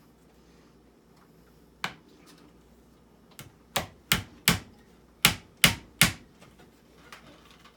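Hammer driving nails into a wooden bench-work frame: a single blow, then two quick runs of three sharp strikes.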